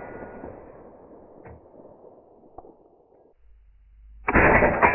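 A suppressed AR-15 fires one shot near the end, a sudden loud report that dies away over about half a second. The fading tail of the previous shot runs out over the first few seconds, with a couple of faint clicks in between.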